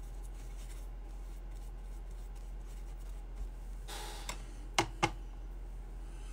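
Quiet room tone with a low hum. About four seconds in there is a brief soft rustle, then two sharp light clicks a quarter second apart as a paintbrush knocks against a plastic watercolor paint palette.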